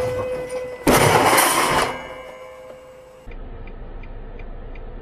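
A car horn held on one steady note, then just under a second in a loud crash of a head-on collision with an oncoming car, lasting about a second while the horn carries on faintly. After a cut, a faint regular ticking about three times a second inside a car.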